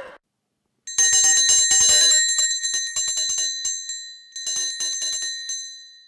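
A small bell rung rapidly in two bouts, a long one and then a shorter one, its ringing dying away near the end.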